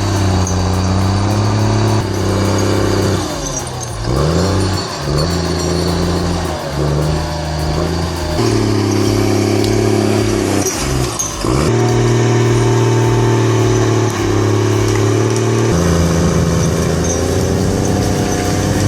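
John Deere 640H skidder's diesel engine working under load, running at steady pitches that step up and down. Twice it sags and climbs back, about four seconds in and again near eleven seconds.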